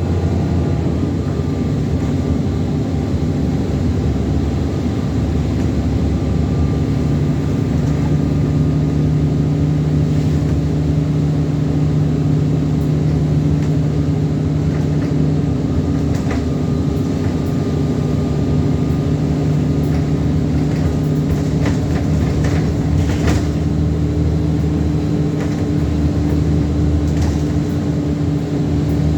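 ADL Enviro400 Trident double-decker bus heard from on board, its engine and driveline holding a steady drone while cruising. Short rattles and clicks come and go through the middle.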